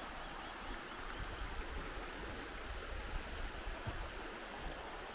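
Faint, steady rush of river water flowing, with some low rumble underneath.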